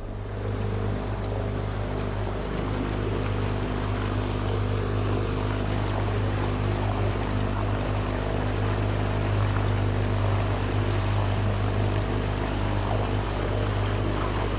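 An engine running steadily at a constant speed, a low, even drone that holds unchanged throughout.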